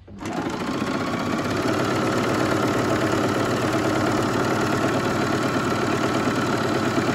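Merrylock MK4075 coverlock (combined overlock and coverstitch machine) sewing a coverstitch seam in fabric: it comes up to speed within the first second, then runs steadily with a fast, even rhythm.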